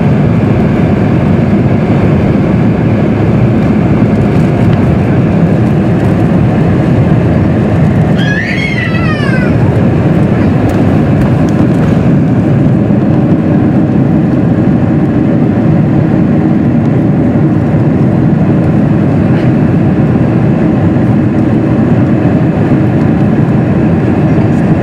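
Boeing 747-400's Rolls-Royce RB211 turbofans at takeoff thrust, heard inside the cabin over the wing: a loud, steady rumble through the takeoff roll and initial climb. About eight seconds in, a brief high, wavering, falling sound rises above it.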